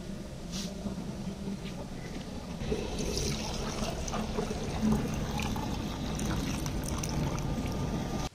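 Water poured from an aluminium pot into an earthenware clay pot, a steady splashing pour that froths up in the pot; it grows louder about three seconds in.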